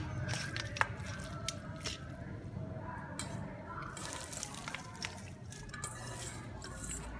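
Hands squishing and mixing raw chicken pieces in a stainless steel bowl, a wet handling sound with scattered light clicks and taps against the metal. Midway, shredded lemongrass and leaves are tipped in from a second metal bowl.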